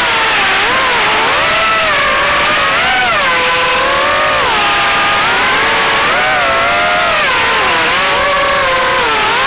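HX115 FPV quadcopter's brushless motors whining loudly, the pitch swooping up and down every second or so as the throttle changes.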